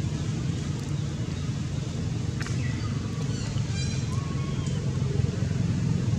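A steady low hum and rumble, with a few faint, short, high chirps and squeaks over it, including a brief buzzy call a little before the middle.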